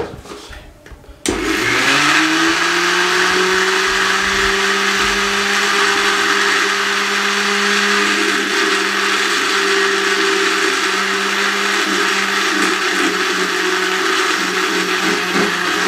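Electric countertop blender switching on about a second in. Its motor whine rises quickly to speed and then runs steadily while it grinds a wet mix of mint, coriander, green chillies and soaked chana dal with water into a smooth chutney.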